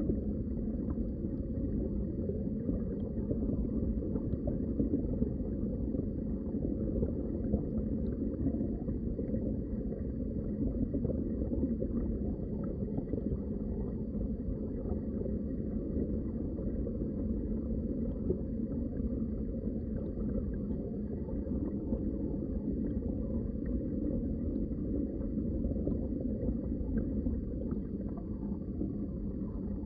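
Muffled underwater ambience: a steady low rush of water noise with nothing sharp in it, and a faint high steady tone above it.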